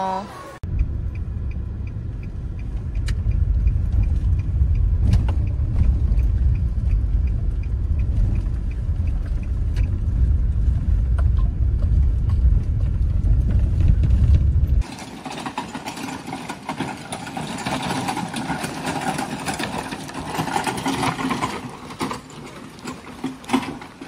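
Car cabin noise while driving: a steady low rumble of engine and tyres that cuts off suddenly about 15 seconds in, followed by a quieter, hissy outdoor background.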